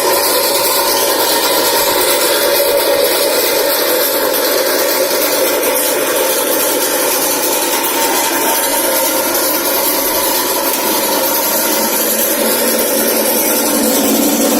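Electric centrifugal oil spinner (oil-draining machine for fried food) running at a steady speed, its motor and spinning basket giving a constant loud whirr.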